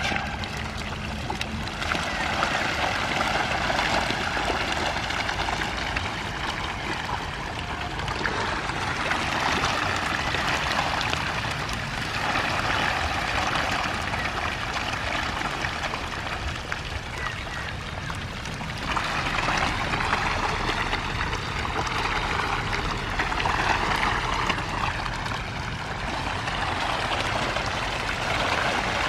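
Hybrid magur catfish crowding the surface to eat floating feed: a continuous wet splashing and slurping that swells and eases every few seconds.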